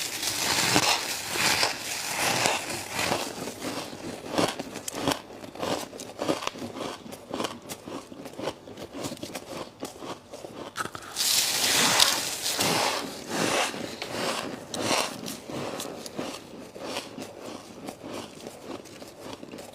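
Freezer ice being bitten and chewed close to the microphone: a steady run of crisp crunches, with louder bursts at the start and again about eleven seconds in.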